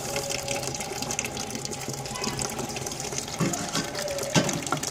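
Rocket stove burning homemade paper bricks: a steady rushing draft with scattered crackles and a few sharper pops in the second half.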